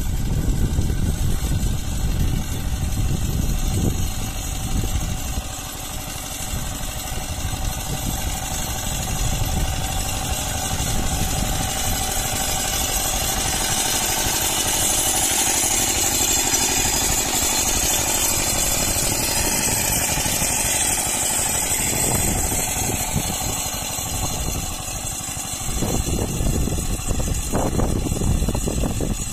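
The 5 HP engine of a walk-behind mini power tiller running steadily as the machine is driven through the soil between crop rows.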